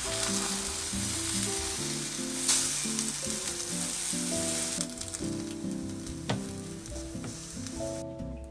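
Egg-soaked sandwiches sizzling as they fry in a frying pan, the sizzle loud for the first five seconds and then fading. A spatula knocks sharply against the pan twice, about two and a half and six seconds in.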